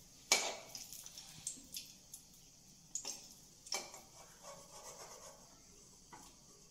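An egg cutlet deep-frying in hot oil in a steel kadai, a steady sizzle, with a slotted steel ladle knocking and scraping against the pan several times as the cutlet is turned; the loudest knock comes just after the start.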